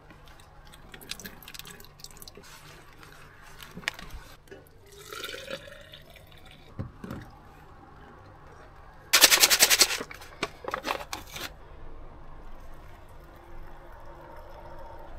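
Light clinks of a steel camping pot and its lid on a portable gas stove. About nine seconds in comes a loud rasping rustle lasting about a second, and near the end hot water is poured from the pot into an instant noodle cup.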